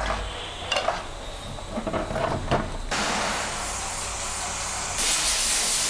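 Aerosol cleaner sprayed onto a greasy gearbox housing: a steady hiss that starts about three seconds in and gets louder near the end. Before it, a few light knocks from handling the parts.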